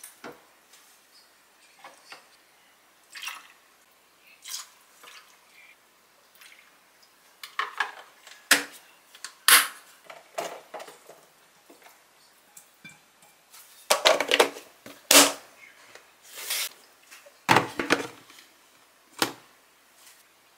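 Kitchen handling sounds: soy-braised quail eggs and their sauce poured and dripping from a pot into a clear plastic container, with clinks from the pot and spatula. Plastic food-storage containers then knock together as they are set down and stacked. The sounds are scattered clicks and knocks, louder and more frequent in the second half.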